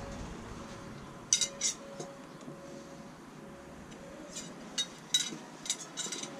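Steel throwing knives clinking against each other as they are gathered and handled: a few sharp metallic clinks about a second in, then a quicker cluster of them near the end.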